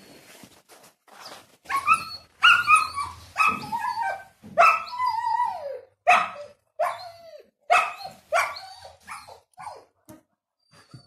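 Five-week-old puppies yelping and whining: a quick run of high calls, many sliding down in pitch, from about two seconds in until near the end.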